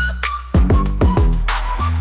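Electronic hip-hop style instrumental music: a steady beat of deep kick drums that drop in pitch, under a sustained bass, with a bright crash-like hit about one and a half seconds in.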